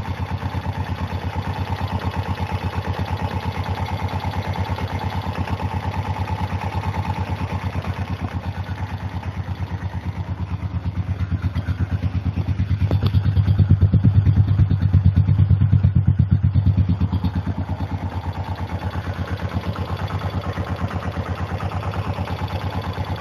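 Single-cylinder engine of a 2007 Honda ATV running steadily at low speed, with an even pulse, growing louder for a few seconds around the middle before settling back. It is freshly rebuilt with a new piston and cylinder, and its owners take its running for a flooding carburetor.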